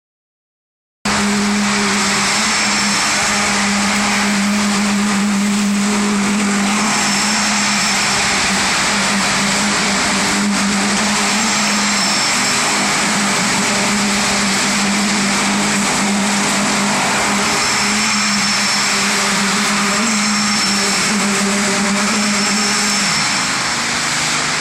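Vibratory road roller running steadily on a paving job, a loud constant mechanical drone with a strong low hum. It starts about a second in, and the hum eases off near the end.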